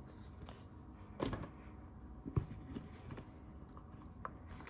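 A snug cardboard iPhone box lid being pulled up off its base by hand. There is a faint scrape of the sliding cardboard about a second in, then soft clicks and handling rustles.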